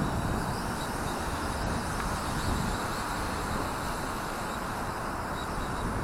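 Gusty wind buffeting the microphone: a steady rumbling rush with irregular low flutter.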